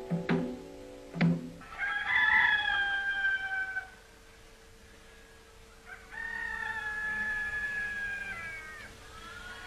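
The last plucked-string notes of background music die away in the first second and a half. Then a rooster crows twice, once about two seconds in and again for longer at about six seconds, over a faint steady hum.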